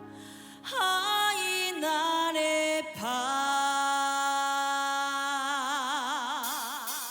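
A woman trot singer's voice sings a wordless vocal line, sliding through a few short notes and then holding one long note from about three seconds in. The vibrato on the held note grows wider toward the end.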